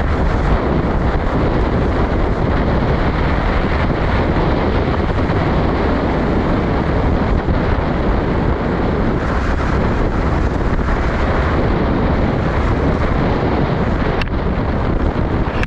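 Steady wind buffeting the microphone over the rumble of an off-road jeep driving along a paved lane.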